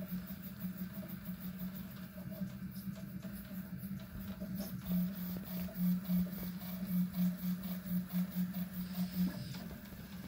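Prusa i3 MK3 3D printer printing, its stepper motors humming steadily as the print head and bed shuttle back and forth. About halfway through, the hum swells in a quick run of surges for a few seconds, then settles back.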